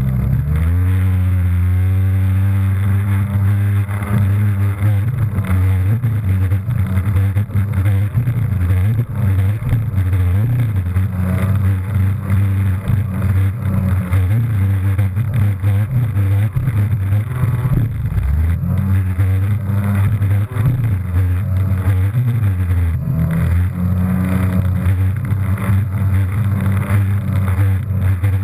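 Jet ski engine revving up just after the start, then running hard at speed. Its pitch wavers with the throttle and dips once about two-thirds of the way through before climbing again, over the rush of water spray.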